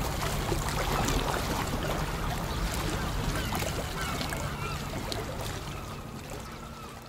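Outdoor waterside ambience: a steady wash of water and low rumble with scattered short bird calls, fading out over the last few seconds.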